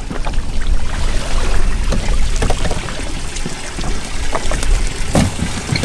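Seawater pouring and dripping off a cast net as it is hauled up out of the sea over a boat's side, over a low steady rumble.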